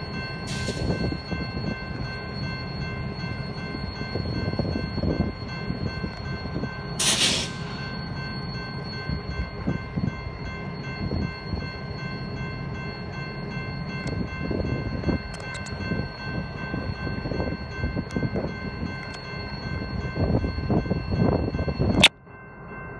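Diesel locomotives rolling slowly past, a steady low engine and wheel rumble. A loud hiss of air comes about seven seconds in, and several steady high tones run over it throughout. Near the end a sharp click is followed by a sudden drop in sound.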